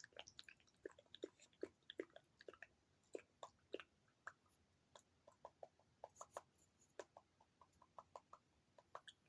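ASMR mouth sounds close to the microphone: a steady run of soft wet clicks, pops and smacks of lips and tongue, several a second, with a cluster of higher-pitched tongue clicks in the second half.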